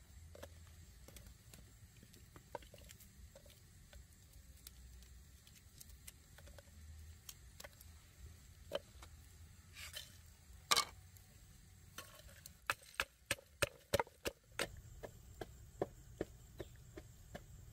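Knife chopping on a wooden cutting board. Scattered knocks at first, one loud knock just before eleven seconds in, then a steady run of chops, about three a second, from about twelve seconds in.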